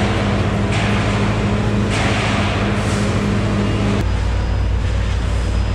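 Forklift engine running steadily; about four seconds in its note changes and turns deeper.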